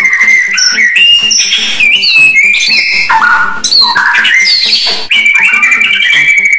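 White-rumped shama singing a varied song of clear whistled notes that jump quickly up and down in pitch, ending in a long held whistle about five seconds in.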